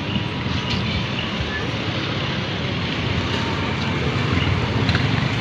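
Busy street traffic: cars and motorcycles going by close, loudest as a motorcycle passes near the end.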